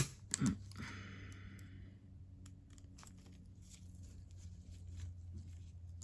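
Small metallic clicks and a brief scraping as snap-ring pliers handle a retaining ring being fitted into a ratchet head: two sharp clicks at the start, a short scrape about a second in, then a few faint ticks. A faint steady hum runs underneath.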